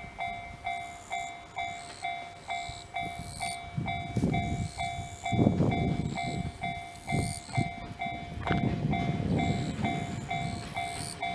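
Railway level-crossing alarm ringing, an even electronic ding about twice a second, as a single-car diesel train starts toward the crossing. Low rumbles come and go about four seconds in and again near the end.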